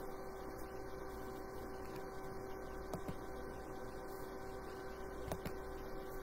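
Steady low electrical hum with faint room noise, broken by a couple of faint clicks about three and five seconds in.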